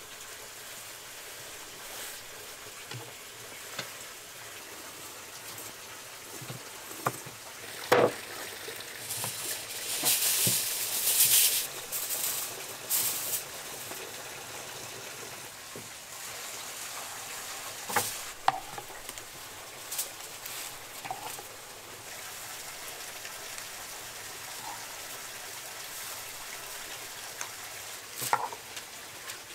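Food frying in a pan with a steady sizzle that swells louder for a couple of seconds partway through. A few sharp knocks, like a utensil striking the pan, stand out above it.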